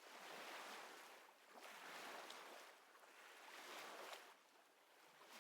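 Faint ocean surf: a soft hiss of waves swelling and fading about three times, dropping away briefly near the end.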